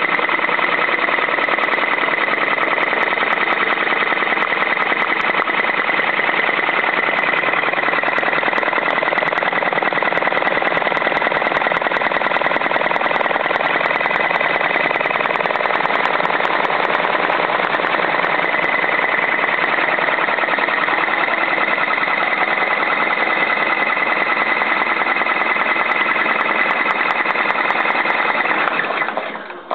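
Brother PR650e six-needle embroidery machine stitching at speed through a buckram-backed ball cap on its cap jig: a fast, steady needle clatter with a steady high tone over it. It stops just before the end.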